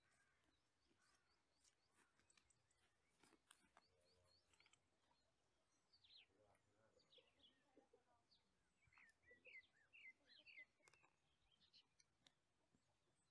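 Faint bird chirps and calls over a quiet background, with a quick run of chirps about two-thirds of the way through.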